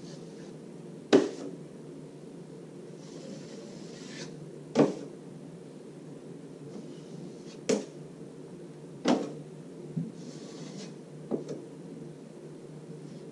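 Steel drywall knife clacking against the metal mud pan, about six sharp knocks a second or more apart, as joint compound is loaded and scraped off the blade, with a couple of soft scraping swishes of compound being spread on the plasterboard between them.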